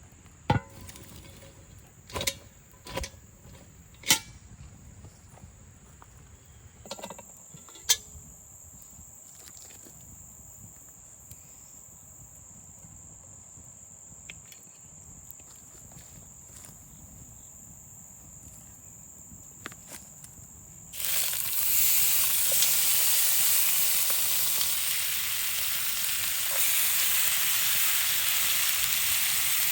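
A few sharp knocks, then, about two-thirds of the way in, a loud sizzle starts suddenly and holds steady: meat going into hot fat in a cast iron Dutch oven over an open fire.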